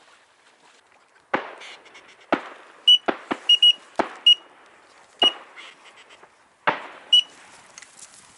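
Shotgun shots during a duck hunt, about seven reports scattered over several seconds, each with a short echo tail. Several short, high whistle-like beeps come between them and are the loudest sounds.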